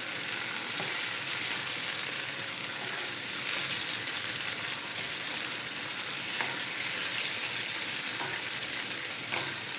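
Curry sizzling steadily in a hot pan just after the salan has been added, with a few light clicks of a utensil in the last few seconds.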